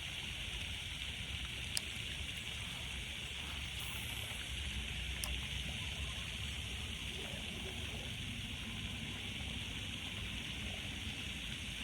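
Steady rushing noise of running water, with a single sharp click about two seconds in.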